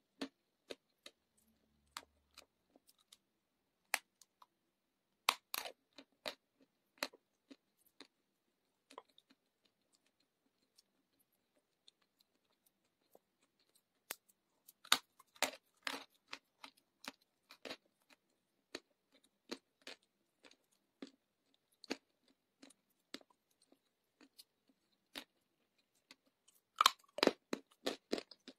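Close-up crunching and chewing of dry clay chunks: sharp crackling clicks of bites and chews, coming in clusters and loudest near the end.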